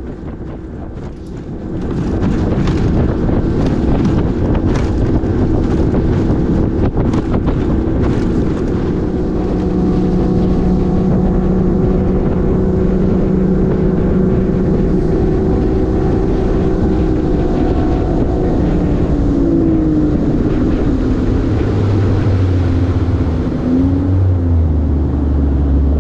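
Boat motor running under way, getting louder about two seconds in and holding steady, its pitch dipping and rising near the end as the throttle changes. Wind buffets the microphone, with sharp knocks in the first few seconds.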